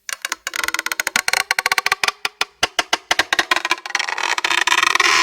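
Rope creaking under tension: a rapid, irregular run of creaks from the fibres stretching and rubbing. The creaks crowd together and, about four seconds in, merge into a continuous squeak that cuts off sharply near the end.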